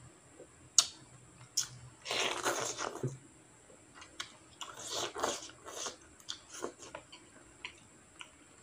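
A person slurping and chewing instant noodles in soup, with two longer slurps and wet mouth sounds between them. A few sharp clicks, the loudest about a second in.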